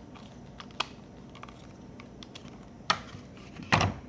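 Hand screwdriver driving screws into the plastic housing of a Dodge Ram power-window switch: a few scattered sharp clicks, the loudest cluster near the end.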